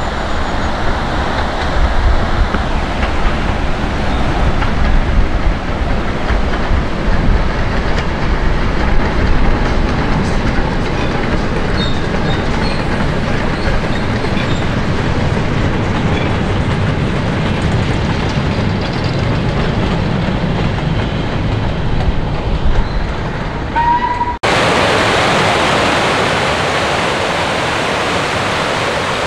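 Steam locomotive hauling a goods train of wagons past, running steadily along the line. About 24 seconds in it cuts to the steady rush of a river over rocks.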